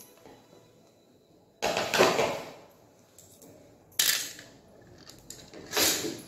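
Three short handling noises, about two seconds apart, from kitchen things being picked up or set down on a stone floor. The first is the longest.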